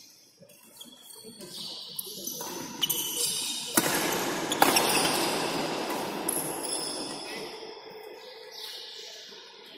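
Badminton singles rally: a few sharp racket strikes on the shuttlecock and short high squeaks of court shoes. From about four seconds in, a loud burst of noise takes over and fades over the next three seconds.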